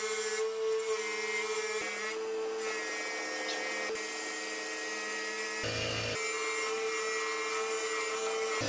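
Bench polishing motor running with a steady whine as metal meat grinder parts are pressed against its spinning buffing wheel, with short rubbing hisses where the metal meets the wheel.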